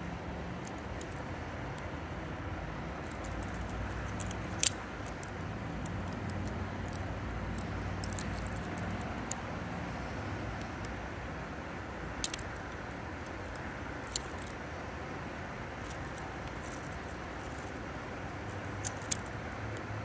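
Sharp metallic clicks from a butterfly knife's skeletonized steel handles and latch as it is handled and flipped open and shut: single clicks every few seconds, with two close together near the end, over a steady background rumble.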